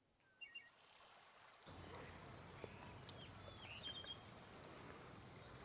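Faint outdoor ambience with a few short, high bird chirps scattered through it.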